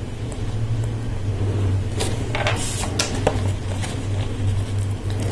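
Small clicks and a brief rustle of Lego plastic parts and a sticker sheet being handled, most of them between about two and four seconds in, over a steady low hum.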